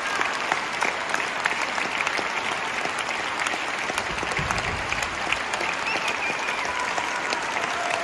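Concert-hall audience applauding steadily: dense, even hand-clapping, with some claps close by.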